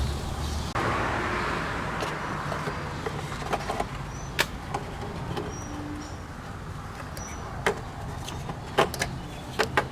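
Plastic cooling fan and shroud assembly rustling and scraping as it is slid down into the radiator's mounting tabs, with several sharp plastic clicks and knocks, mostly in the second half.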